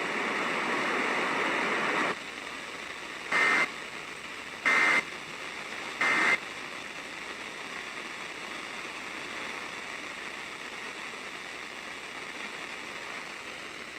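Broadcast hiss that drops in level about two seconds in, then three short Emergency Alert System data bursts about a second and a half apart: the SAME end-of-message code that closes the alert.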